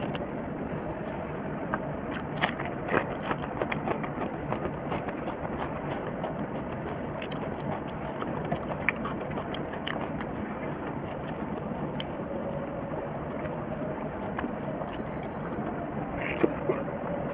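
Close-up eating sounds: fingers mixing rice and curry on a steel plate, and chewing, heard as scattered soft clicks and smacks over a steady background hiss, with a louder smack near the end as a handful goes into the mouth.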